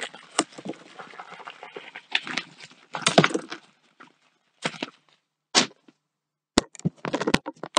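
Irregular knocks, clicks and scuffing rustles close to the microphone, with short pauses between them.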